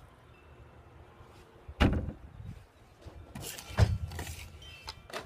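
Plastic Nerf blasters being handled: a knock about two seconds in, a louder clack with a short scraping slide about three and a half seconds in, and a lighter knock near the end.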